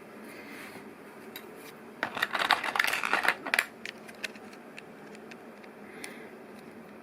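Loose plastic LEGO Technic pieces clicking and rattling as they are handled, with a dense clatter about two seconds in that lasts a second and a half, then a few scattered single clicks.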